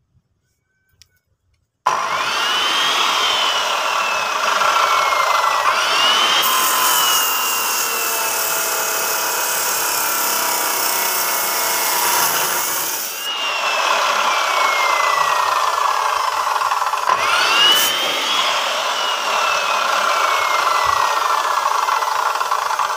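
Abrasive cut-off saw (chop saw) starts about two seconds in and runs loudly, grinding through a tied coil of steel binding wire. Its whine rises and then slowly sinks in pitch four times as the disc is pressed into the wire.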